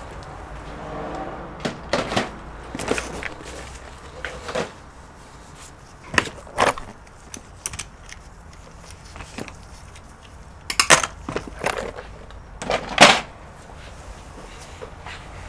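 Handling noise at a workbench: scattered clicks and knocks as tools are picked up and set down, with the two loudest knocks a little before the end.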